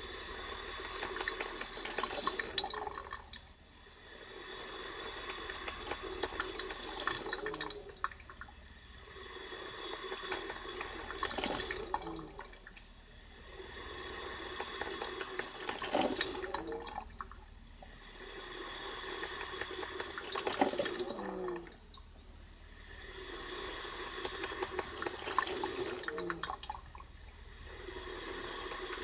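Braun Type 4085 drip coffee maker brewing: water gurgling and hissing as it is pushed up through the heater, in surges that swell and fade about every four to five seconds.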